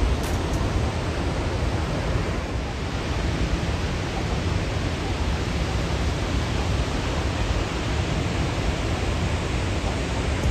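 Victoria Falls pouring: a steady, even rush of falling water with a deep rumble underneath.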